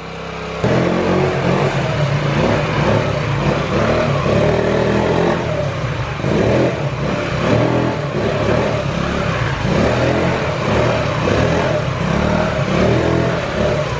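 Small two-stroke moped engine revving hard, its pitch rising and falling over and over as the throttle is worked. It comes in suddenly about half a second in.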